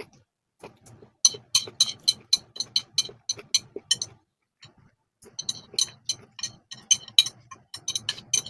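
Close-miked chewing, a crisp click with each bite about three to four times a second, stopping for about a second midway.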